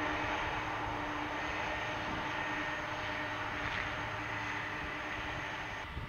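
Boeing 747 jet engines running steadily at low taxi power: a constant rumble with a steady high whine. The whine stops abruptly near the end.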